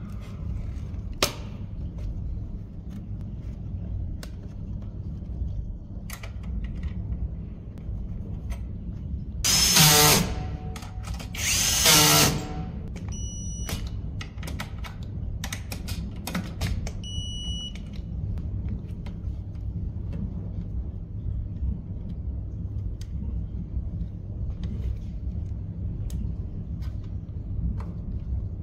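Cordless electric screwdriver driving fasteners in two short runs of about a second each, around ten and twelve seconds in, with light clicks and knocks of metal parts being handled between them, over a steady low hum.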